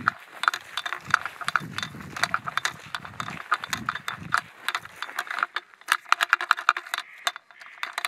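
Silky Sugoi 360 pruning saw clicking and rattling in its plastic holster on the belt of a walking person, several sharp clicks a second. Footsteps thud along with the clicks in the first half.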